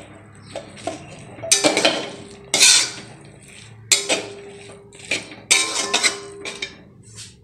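A metal wok (kadai) being stirred during stir-frying, with a utensil scraping and clanking against the pan in irregular strokes about once a second. After some strokes the pan rings faintly.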